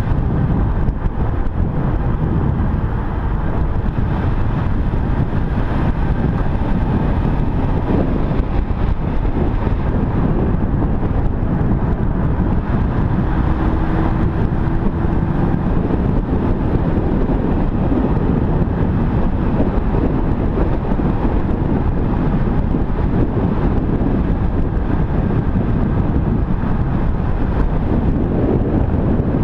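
An Aston Martin driving at low speed, heard from a camera on its bonnet: a steady wind rumble on the microphone over the car's engine and tyre noise.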